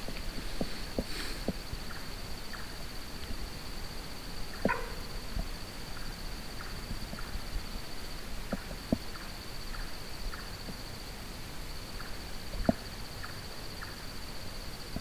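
Night-time insects trilling on one steady high note, with faint short chirps repeating roughly twice a second and a few scattered soft knocks.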